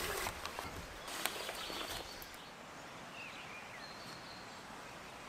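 Rustling handling noise with a sharp click about a second in, then quieter woodland ambience with a few faint bird chirps.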